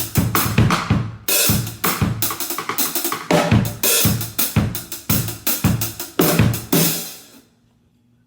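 Acoustic drum kit played in a small room, unmiked and unprocessed: steady kick and snare hits under cymbal wash. A heavy accented hit comes about a second in. The playing stops near the end and the last cymbal rings out quickly, leaving only a faint hum.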